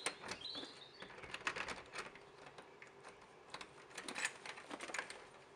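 Faint, irregular clicks and rattles of a wooden garden gate's latch and handle being worked by hand.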